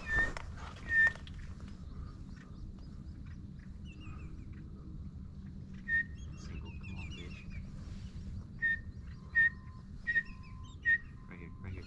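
Duck whistle calling teal: short, clear peeps of one pitch, twice at the start and then a quick run of five or six near the end, some with a lower second note, with faint bird chirps in between.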